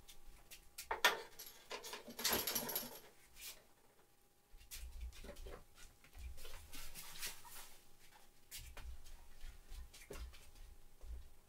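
Footsteps and the handling of parts at a workbench: a sharp click about a second in, a rustle lasting about a second, then scattered light knocks and soft low thumps.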